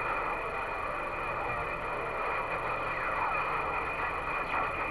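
CB radio receiver giving a steady hiss of band noise and static, with faint, warbling traces of distant signals.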